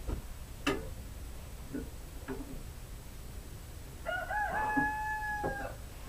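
A rooster crowing once, starting about four seconds in: a call of about a second and a half that rises at first and then holds on one pitch. Earlier there is a sharp knock and a couple of lighter taps.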